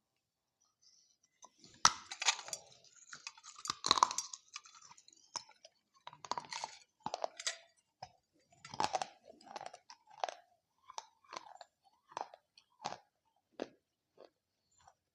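Crunching and chewing of crisp dahi papdi chaat: two loud bites about two and four seconds in, then a run of crunchy chewing strokes, about two a second, slowly getting fainter.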